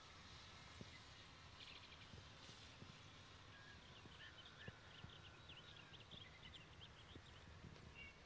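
Near silence, with faint runs of short, high chirps, like a small bird calling, loudest about halfway through.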